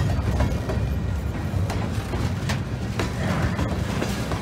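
Freight train cars rolling past close by: steel wheels on rail give a steady low rumble, broken by irregular clicks and clanks.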